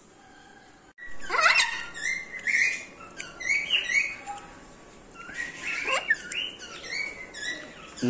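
Birds chirping over and over in short, quick chirps, with two quick rising whistles: one about a second in and one near the six-second mark.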